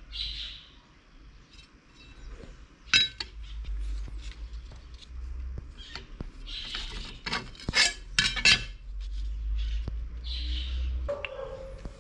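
Light metallic clinks and taps of a thin steel brush cutter blade being handled and set on a metal plate: a sharp one about three seconds in, then a cluster near the eight-second mark. Birds chirp in the background.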